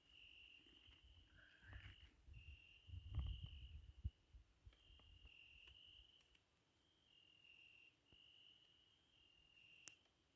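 Faint crickets trilling in a steady high-pitched chorus. In the first few seconds there are low rustles and a sharp knock.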